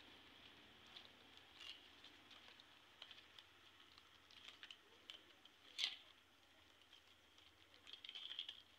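Faint crackling and rustling of dried coconut-frond leaflets being folded and woven by hand into a mat, with scattered small clicks, a sharper click about six seconds in, and a short crackly patch near the end.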